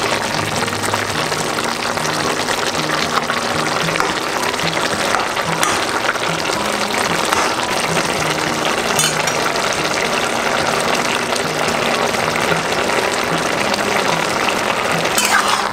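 Vegetables simmering in their cooking liquid in an aluminium kadai, a steady bubbling and sizzling, with background music playing over it.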